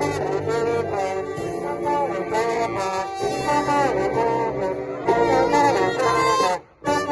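Live street brass band playing an upbeat tune, with trumpets, trombones and saxophone carrying the melody together. The music cuts out abruptly for a moment near the end, then carries on.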